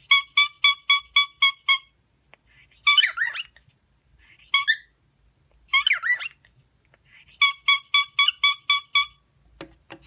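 Cockatiel whistling: a quick run of about eight identical short notes, roughly four or five a second, then three warbling chirps, then another run of the same repeated notes near the end.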